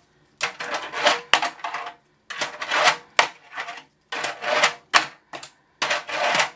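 Tech Deck fingerboard ridden back and forth on a plastic ramp: about six short runs of its small wheels rolling and scraping, each starting with a sharp clack as the board lands or strikes the ramp.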